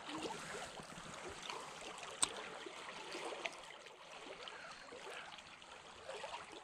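River water running high and fast, a steady rushing hiss with a few faint ticks and one sharper click about two seconds in.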